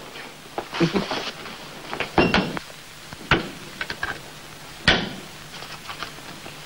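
Clothing rustles, then a few sharp knocks and clicks as equipment is handled in a small room. The loudest knock comes about five seconds in.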